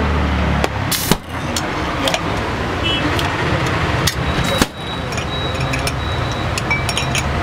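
A marble-sealed goli soda bottle popped open by a finger pushing the marble down: one short, sharp pop about a second in. Afterwards glass and spoon clinks and a louder knock a little before five seconds, over steady street noise.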